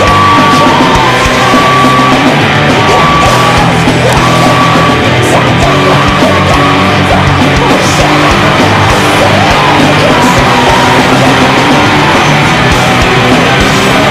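Loud, aggressive rock music with distorted guitars and shouted vocals.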